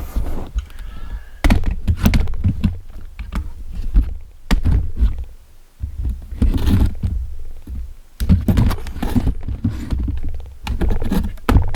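Irregular knocks, clicks and heavy thuds of hand tools working on a Honda Civic's valvetrain during a valve lash adjustment.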